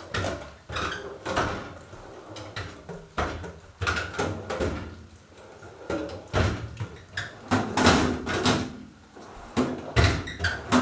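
Steel drawers of a US General 26-inch roller tool cabinet being slid open and shut, with repeated metallic clunks and rattles as they close.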